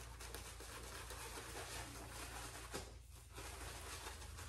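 Faint, soft swishing and scratching of a synthetic shaving brush working lather over the face, briefly pausing about three seconds in, over a low steady hum.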